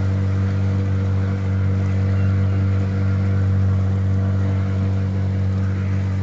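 Boat motor running at a steady speed, an even drone with no change in pitch as the boat moves along the river.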